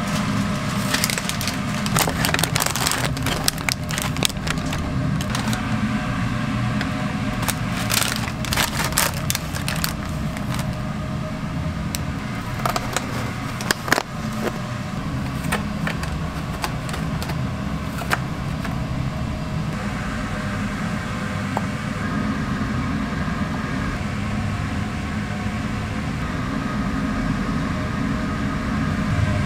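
Steady low kitchen hum under the crinkle and rustle of paper wrappers and clicks of handling as burgers are wrapped and packed into molded pulp takeout boxes, with a sharp snap about halfway through as a box lid is pressed shut.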